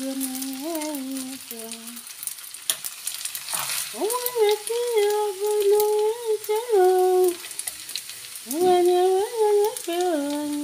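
A voice humming a slow tune in long held notes, three phrases each entered with an upward swoop, over a steady faint hiss and a few short scrapes of a serving spoon.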